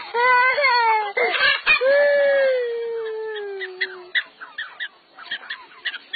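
A young child crying loudly: a long wail about two seconds in that slowly falls in pitch, then quieter short sobs.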